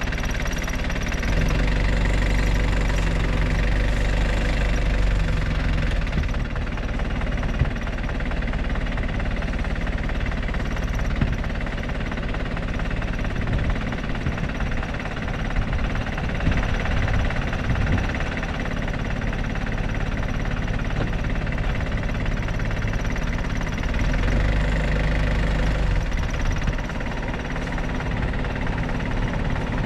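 Vehicle engine idling close by, a steady hum with a deeper low rumble that swells twice, a couple of seconds in and again past the twenty-second mark.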